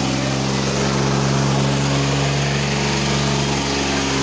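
Swaraj 855 tractor's three-cylinder diesel engine running steadily at a constant pitch.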